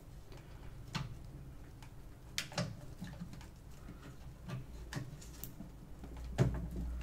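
Scattered light clicks and taps, one every second or so, from hands handling and pressing the RealSense module against the Typhoon H drone's housing to fit it in place.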